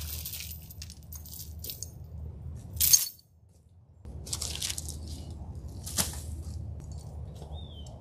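Dry brush and branches crackling and snapping as they are handled and stepped on, with a louder crack about three seconds in and a sharp snap about six seconds in, over a low steady hum.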